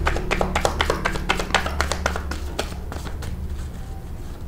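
Tarot deck shuffled by hand: a quick run of crisp card flicks and taps that thins out and gets quieter over the last second or so, over a low steady hum.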